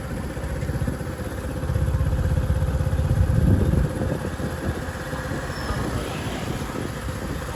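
A motorbike engine running close by, loudest about two to four seconds in.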